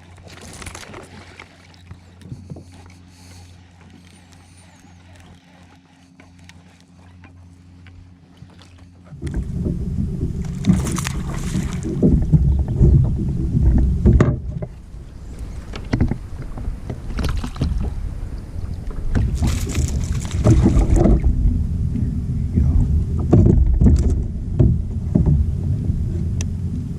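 Kayak out on the water: a faint steady hum, then from about nine seconds in a loud low rumbling water-and-wind noise on the microphone, with a few brief sharp noises.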